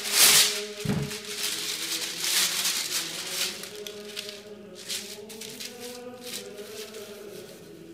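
A thin sheet of paper crinkling and rustling as it is handled and smoothed flat by hand, loudest in the first second and thinning out after about four seconds. Slow chant music plays underneath throughout.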